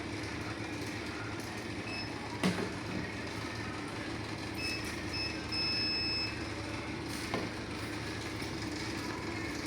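Steady running noise of industrial machinery with a low hum, a clank about two and a half seconds in and another a little past seven seconds, and a high electronic beep: a few short beeps, then a longer one just past the middle.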